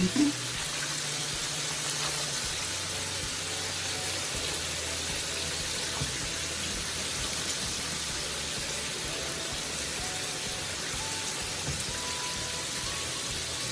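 Steady sizzle of food frying on the stove, an even hiss with no breaks.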